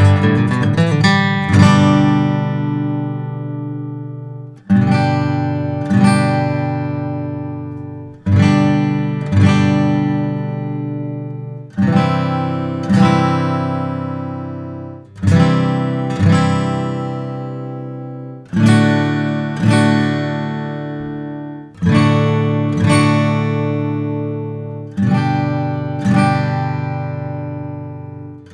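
Gibson Songwriter Deluxe Studio acoustic guitars with a Sitka spruce top and rosewood back and sides. The player opens with a quick run of strums, then strikes single chords, about one every one to three seconds, and lets each ring out and fade. The sunburst non-cutaway is heard first, then the natural-finish cutaway.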